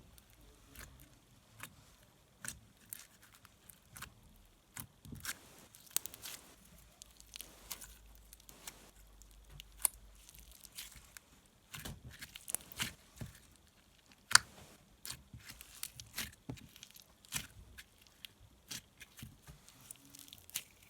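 Thick glitter glue putty activated with borax being squeezed, stretched and pressed by hand, giving irregular small pops, clicks and crackles.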